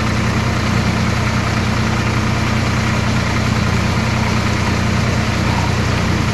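Swaraj 744 XT tractor's three-cylinder diesel engine running at a steady speed, an even low hum that does not change.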